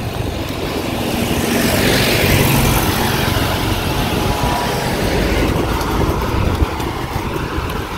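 A motor vehicle passing close by: engine and tyre noise build to a peak about two seconds in, then ease off.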